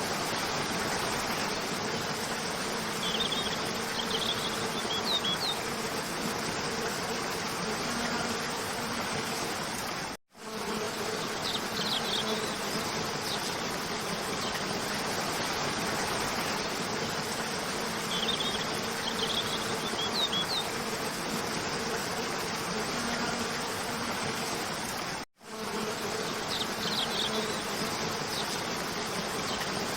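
Steady rush of a waterfall, with a few brief high chirps scattered through it. It drops out for a moment twice, about 10 and 25 seconds in, and the same stretch repeats after each drop: a looped recording.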